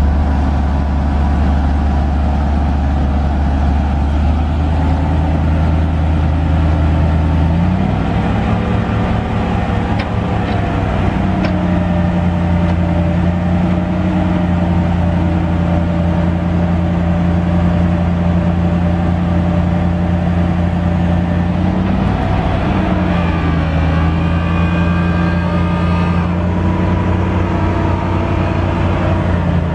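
Ford F700 truck's 7.0L V8 gas engine running steadily. Its speed steps up a little about eight seconds in and briefly rises and falls again about 22 seconds in.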